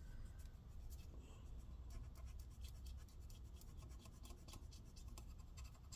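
Faint, irregular scratchy rubbing strokes: a paper towel wet with isopropyl alcohol scrubbing hardened old thermal paste off a laptop heatsink's copper contact plate. The paste is stuck fast.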